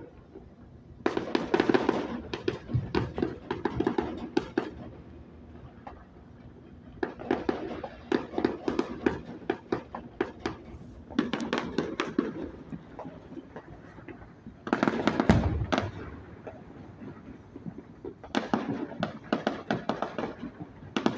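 Fireworks going off: five spells of dense, rapid crackling and popping with short lulls between them, and one louder, deeper boom about fifteen seconds in.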